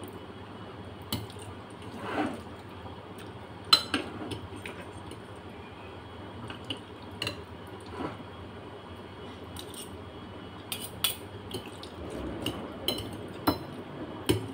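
Metal fork and spoon clinking and scraping against a plate while pasta is twirled and eaten. The clinks come in short scattered strikes, about a dozen in all, the loudest about four seconds in, with softer eating sounds between them.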